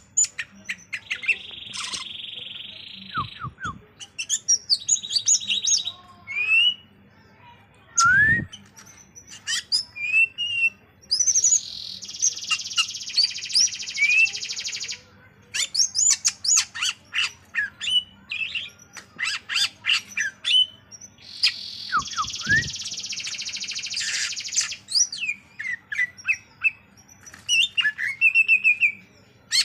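Cucak ijo (green leafbird) singing: a long run of quick high chirps and rising whistled notes, broken four times by dense buzzy trills lasting a few seconds each. A few short low thuds come in among the song.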